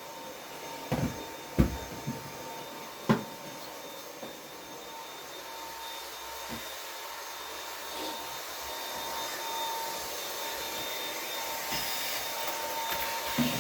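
Dyson vacuum cleaner running steadily with a faint high whine. Several sharp knocks come in the first three seconds.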